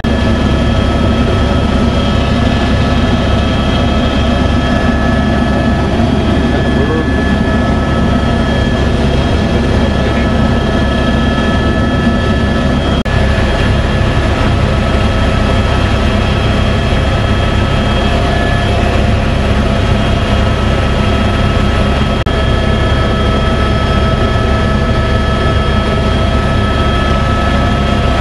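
Helicopter engine and rotor heard from inside the cabin in flight: a loud, steady drone with several steady high whining tones over it.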